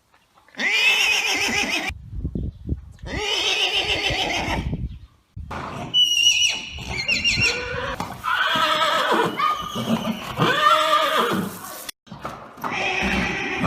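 Horses neighing and whinnying: a run of separate calls with short gaps between them, including a burst of high, shrill squeals about six seconds in, followed by several lower arching whinnies.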